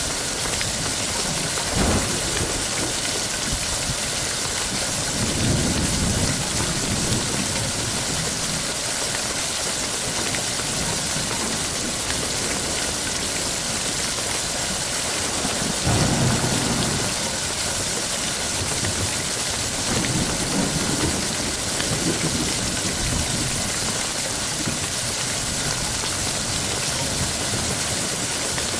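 Steady rain with low rolls of thunder swelling and fading several times.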